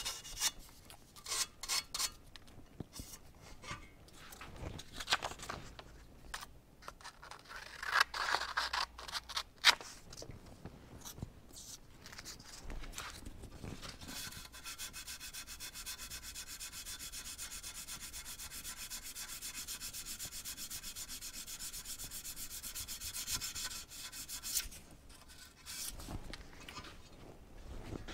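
Sandpaper rubbed by hand over dried spot putty on a 1968 Ford Torino's metal shift plate: uneven scraping strokes at first, then a quick, even run of short strokes for about ten seconds from the middle, with a few knocks near the end.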